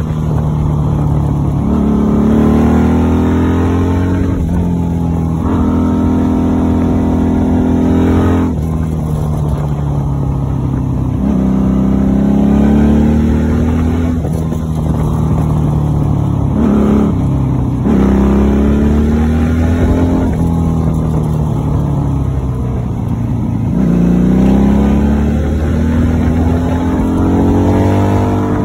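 Honda Magna VF750C's V4 engine pulling the bike along, its pitch rising under throttle and falling off again several times in a row.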